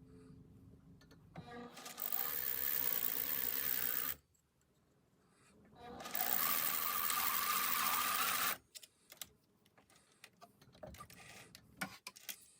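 Sewing machine stitching in two runs of about two and a half seconds each, with a short pause between, followed by scattered small clicks.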